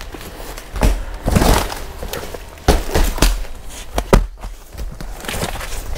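Plastic-wrapped packs of bed sheets being lifted out of a large cardboard box and set down: a string of irregular thumps and knocks with the rustle of plastic wrap and cardboard.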